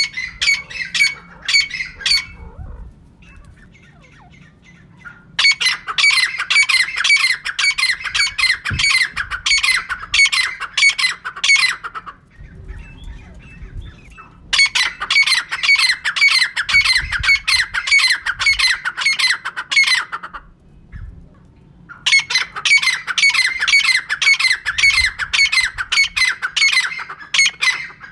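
Female francolin (teetar) calling: bouts of fast repeated notes, each bout lasting about six seconds, with pauses of two to three seconds between them.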